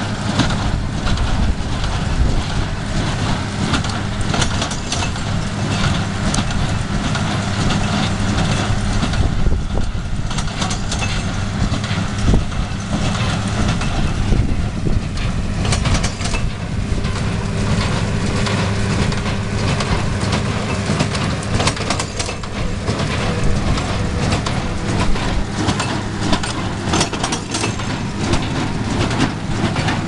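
Tractor engine running steadily while driving a Claas Markant 55 small square baler at work, its plunger and pickup clattering with many short knocks as hay is packed into bales.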